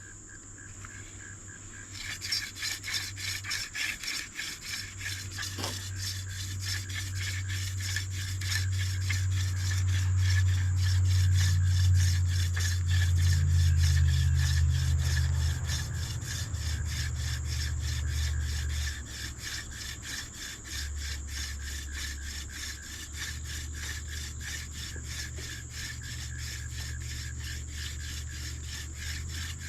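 Hand drill fire-making: a dog fennel spindle spun back and forth between the palms, grinding against a hickory fireboard as dry wood-on-wood friction. The strokes start about two seconds in as a fast, even rhythm, grow louder towards the middle and then ease off a little, over a steady chirring of crickets.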